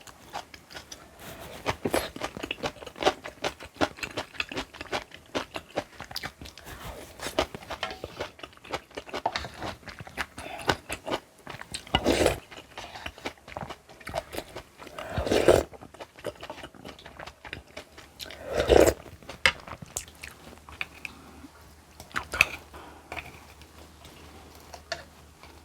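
Close-miked chewing and crunching of food, many small crisp clicks, with three louder bites spread a few seconds apart.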